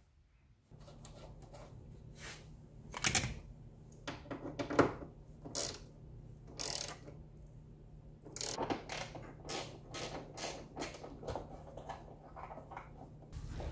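Scattered clicks, knocks and clunks of hands working on the Jeep Wrangler YJ's dash and windshield fittings, the loudest about three and five seconds in. A steady low hum sets in under a second in and runs beneath them.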